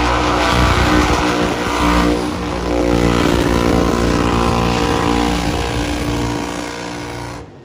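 A loud car engine running at high, steady revs, its note shifting about two seconds in, then cutting off abruptly at the end.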